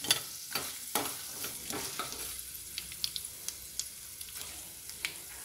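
Hot oil sizzling in an aluminium kadai as a tempering of peanuts, dals, mustard seeds and dried red chillies fries, stirred with a slotted steel spoon. A steady hiss with scattered sharp crackles, several strong ones in the first two seconds.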